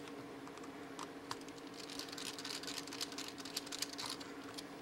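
Light, irregular clicks and scrapes of fingers handling and prying at the plastic-and-metal case of a Casio RP-8 8 KB RAM module as it is taken apart, busiest in the middle.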